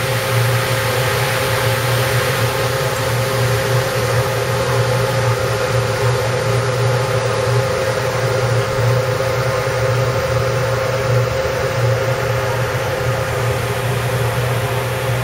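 Ferry engine running under way, a loud steady low drone with a constant higher hum over it, heard on board.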